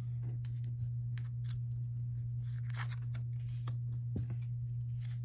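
Pokémon trading cards being slid over one another and flicked, in short light swishes and clicks, over a steady low hum.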